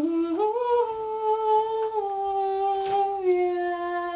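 A young woman's unaccompanied, wordless humming: one long held line that rises about half a second in, then steps slowly down in pitch to a lower note.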